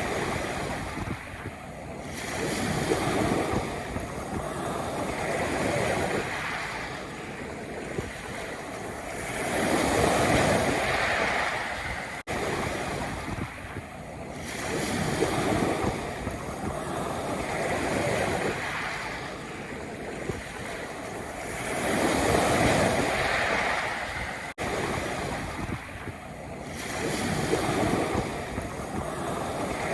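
Sea waves breaking on a pebble beach, each swell rising and falling back about every four seconds. The sound drops out briefly twice.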